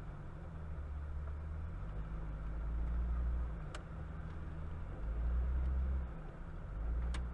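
Low rumble of a car's engine and road noise heard from inside the cabin, swelling louder three times as the car inches forward in slow traffic, with two short ticks.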